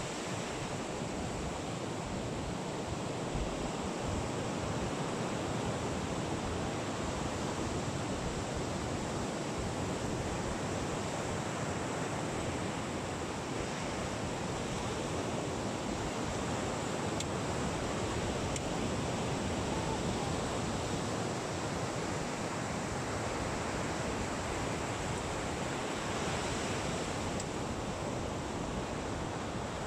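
Steady rush of ocean surf, mixed with wind blowing on the microphone.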